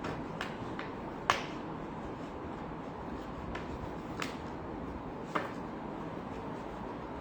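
Scattered small sharp clicks and taps of hand tools on a MacBook Air during a battery replacement, about six in all, the loudest about a second in, over a steady background hum.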